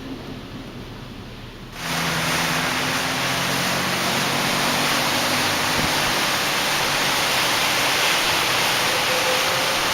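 Strong storm wind, a loud steady rushing hiss that comes in suddenly about two seconds in.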